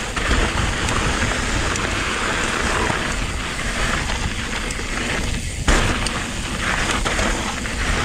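Mountain bike tyres rolling fast over loose gravel on a descent, a continuous crunching hiss. A single sharp knock about five and a half seconds in.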